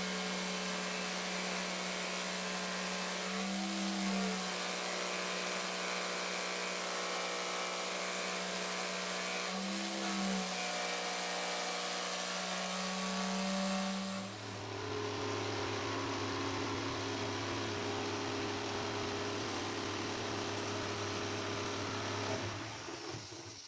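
Modern M 2200 corded jigsaw running as it cuts through plywood, its motor hum wavering briefly twice under the load. About fourteen seconds in the motor drops to a lower steady pitch, and near the end it is switched off and winds down.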